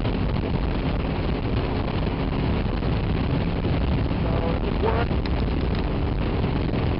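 Honda VFR motorcycle's V4 engine running steadily under way, with a constant rush of wind over the microphone.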